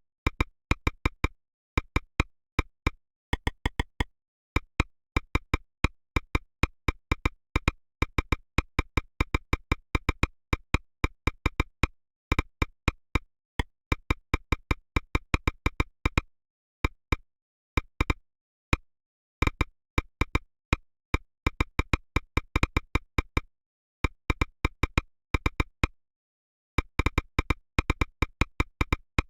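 An Android phone ringtone ringing for an incoming call: a percussive pattern of quick, pitched clicks and taps in rapid runs, broken by short pauses, repeating as it loops.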